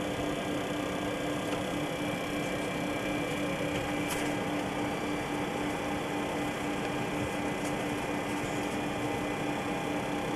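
Steady cockpit noise inside a Boeing 727: an even rush of air with a constant low hum and fainter steady tones, plus a couple of faint clicks.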